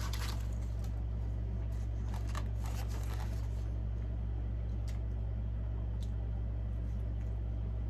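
A steady low hum, with faint scattered clicks and rustles of eating and handling food.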